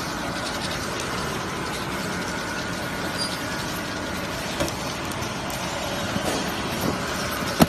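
Heat shrink packing machine running: a steady mechanical whir with a faint high hum, and a few light knocks, the sharpest near the end.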